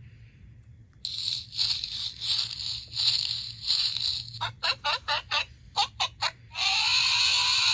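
Recorded animal sounds played in turn from a children's sound book's small speaker: pulsing, chewing-like bursts, then a quick series of short sharp calls, then one long loud call near the end.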